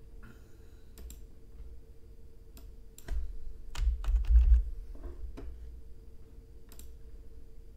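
Computer keyboard keys tapped in sparse, scattered clicks. Low handling thuds near the microphone come from about three to four and a half seconds in and are the loudest part.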